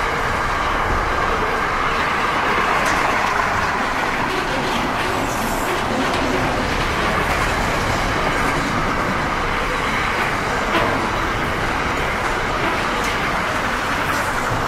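Container wagons of a long intermodal freight train rolling past at speed: a steady rumble of steel wheels on rail, with a few sharper clicks, one louder about eleven seconds in.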